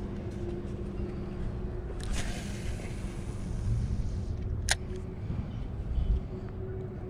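A motor running steadily, a low rumble with a constant hum, and a sharp click about two-thirds of the way through.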